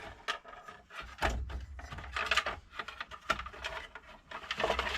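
Handling noise of wires and plastic parts being pushed into a VFD's casing: irregular small clicks, knocks and rustling.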